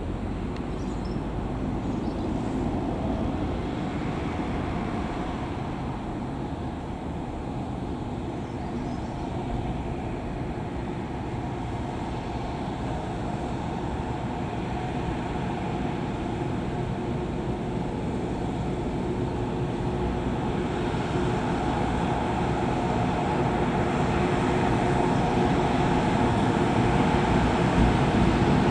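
An EH200 electric freight locomotive hauling oil tank wagons approaches. Its steady hum over the rumble of the wheels grows louder through the second half.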